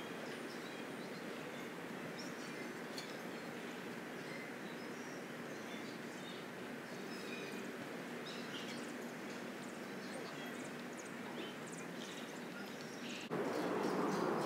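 Outdoor ambience: a steady background hiss with small birds chirping now and then. The background steps up in level abruptly near the end.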